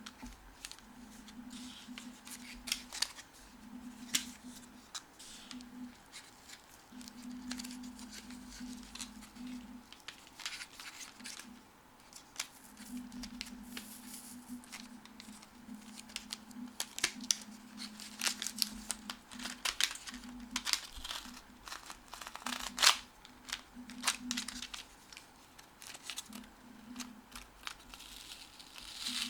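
Packaging being handled and opened by hand: scattered clicks, taps and paper rustling, loudest about two-thirds of the way through, over an on-and-off low hum.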